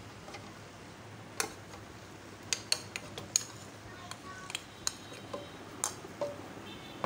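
A bowl knocking and clinking against a blender jar as mango cubes are tipped and scraped into it: a string of sharp clinks and taps, the loudest about two and a half to three and a half seconds in and again near six seconds.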